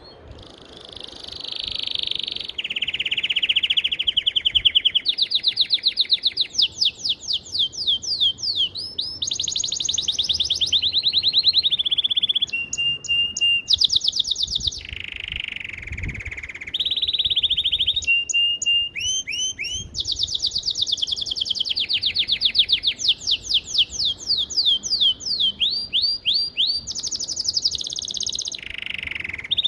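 A songbird singing a long, unbroken song of fast trills and rapidly repeated whistled notes, switching to a new phrase every second or two.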